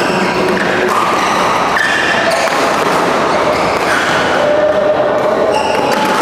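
Badminton rally: sharp racket strikes on the shuttlecock and court shoes squeaking on the court mat in short squeals at changing pitches, over the steady hubbub of a busy sports hall.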